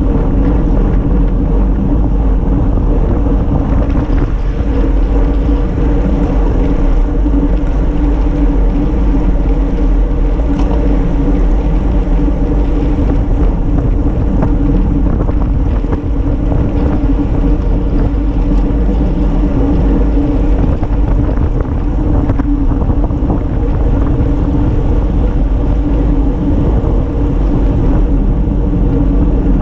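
Steady wind rumble on the microphone of a handlebar-mounted camera on a road bike riding at speed, with a steady hum of bicycle tyres rolling on asphalt.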